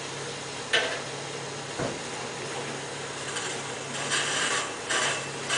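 Work noises at an open septic tank: a sharp knock under a second in and a dull thump about two seconds in, then a series of rasping, scraping strokes in the second half, over a steady low hum.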